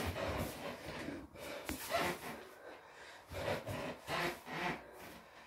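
A person breathing hard through sit-ups, a string of short, forceful breaths, with clothing rubbing and shifting on an exercise mat.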